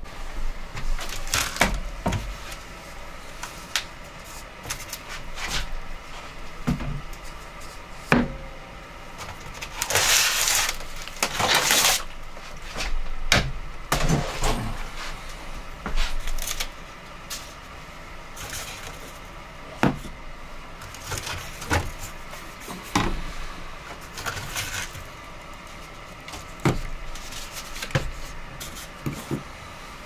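Wooden under-sink cabinet doors being opened and bottles and cleaning supplies inside being handled and shifted: scattered knocks and clicks, with a longer, louder stretch of handling noise about ten seconds in.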